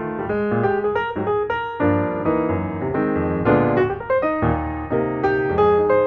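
Background piano music: a steady run of notes, a melody over chords.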